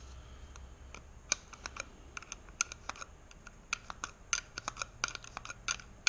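Irregular small clicks and taps of hard plastic and metal parts being handled at a motorcycle turn-signal housing, several in quick succession.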